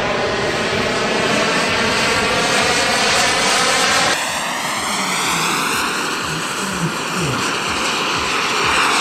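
Radio-controlled model aircraft engine running in flight, a steady note whose pitch drifts up and down as it moves. The sound changes abruptly a little after four seconds in.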